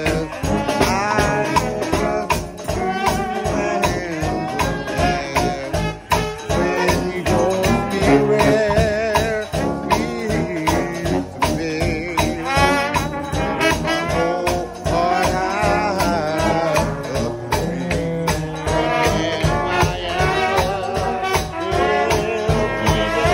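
A trombone-led gospel shout band of trombones and trumpets playing over a drum kit and bass drum keeping a steady, quick beat. The brass notes waver with a strong vibrato.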